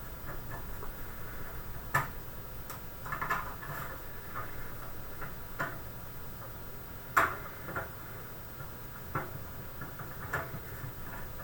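Irregular sharp clicks and taps, every second or two, of a PC case's expansion-slot bracket and screws being handled and fitted around a newly installed graphics card, over a low steady hum.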